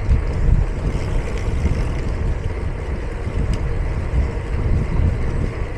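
Steady wind rumble on the microphone and road noise from a bicycle being ridden along a road.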